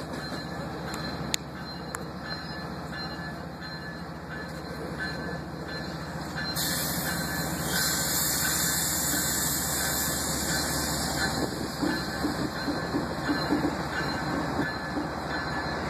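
GE ES44AC diesel-electric locomotive in Pennsylvania Railroad heritage paint running its engine as it pulls slowly forward. Partway through, a loud air hiss lasts a few seconds. Near the end, wheels clatter irregularly over the track.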